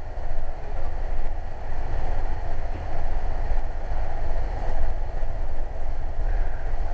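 Metrolink commuter train running at speed, heard from inside a passenger car: a steady rumble of wheels on the rails and the car's running noise.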